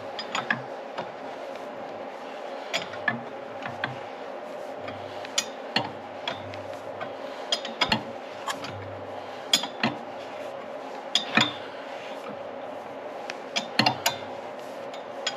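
Irregular metallic clicks and clinks of hand tools and engine parts being handled, over a faint steady hum.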